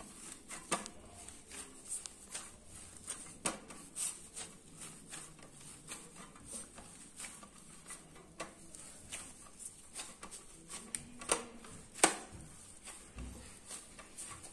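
Hands kneading wheat-flour and fenugreek dough in a stainless steel plate: irregular soft taps and squishes of the dough against the steel, with two sharper knocks near the end.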